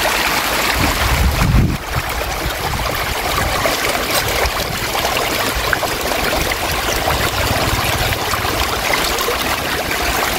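A dense mass of Clarias catfish (cá trê) crowded in shallow water inside a net, thrashing and splashing at the surface: a steady churning, crackling splash of water.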